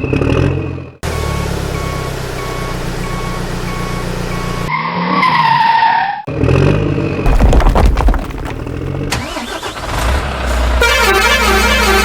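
Cut-together truck sound effects: an engine hum with a regular beep-beep warning tone, a horn blast about five seconds in, a loud low rumble, then a looping tune near the end.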